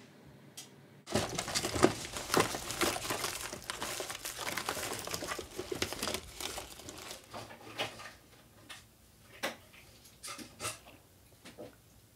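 Rustling and crinkling that starts suddenly about a second in and is dense with sharp clicks. In the second half it thins out to scattered clicks and crackles.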